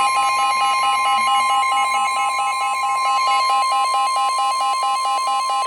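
Emergency Alert System attention signal: a steady, loud alarm tone (the Weather Radio warning alarm) with a second alarm over it that warbles between two pitches about five times a second. The warble stops near the end while the steady tone carries on.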